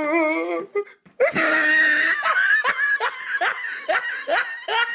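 A person laughing hard: a wavering laugh, then after a short break a long high-pitched squeal of laughter that breaks into a run of quick rising whoops, about two or three a second.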